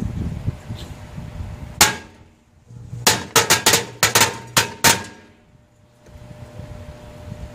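String of firecrackers exploding inside a microwave oven. A single sharp bang comes first, and about a second later a rapid run of eight or so bangs follows over two seconds.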